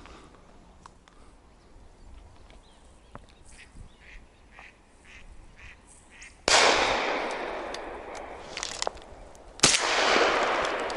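Two shotgun shots from an MR-155 semi-automatic, fired at a woodcock flying overhead, about three seconds apart. Each starts suddenly and dies away slowly with a long echo across the open field. Before them come a few faint short calls.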